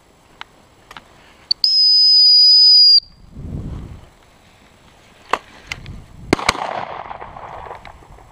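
A single long, steady blast on a gundog whistle, high-pitched and loud. A few seconds later come two sharp cracks about a second apart.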